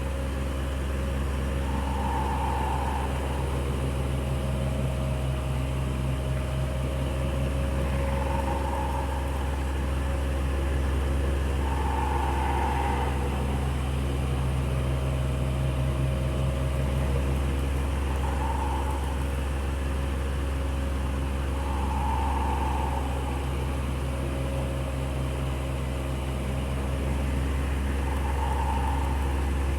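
Electric fan running steadily with a low motor hum and a whoosh of moving air, plus a soft swell that comes back every four to six seconds.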